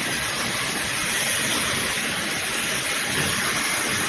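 Wavytalk high-speed hair dryer running on its high setting: a steady rush of air with a strong hiss and no change in level.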